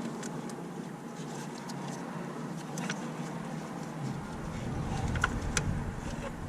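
A few light clicks and taps of hands and tools in an engine bay, over a steady background hum, with a low rumble coming up about four seconds in.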